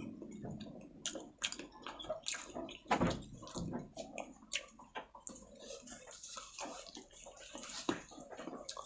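Close-miked wet eating sounds: irregular chewing and lip-smacking over rice and chili chicken gravy, with one louder smack about three seconds in.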